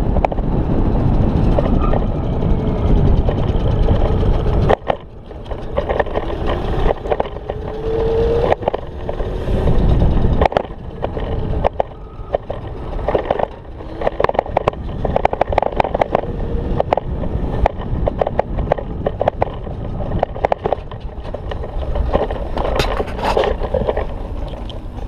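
Riding noise of a chain-drive electric scooter on concrete: wind buffeting the microphone and tyre rumble, with frequent rattles and clicks over bumps. A faint whine from the over-volted 1000 W motor rises in pitch a few seconds in.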